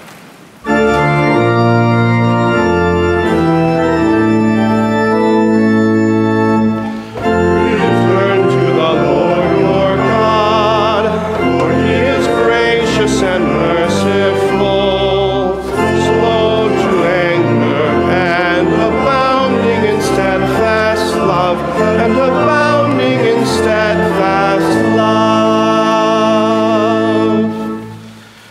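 Church organ playing sustained chords, joined about seven seconds in by a congregation singing along, then dying away near the end.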